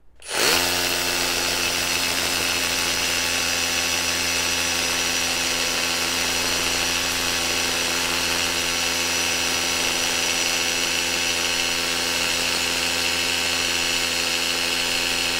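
Ingco 20V brushless cordless rotary hammer drill with a 14 mm masonry bit hammer-drilling into a concrete block. It starts about half a second in, runs steadily under load, and cuts off abruptly near the end.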